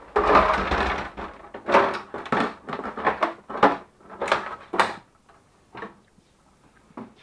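Plastic housing of a Melitta Barista TS Smart coffee machine being handled and pulled apart. A scraping rattle comes first, then a string of hard knocks and clatters that thin out to a few light taps near the end.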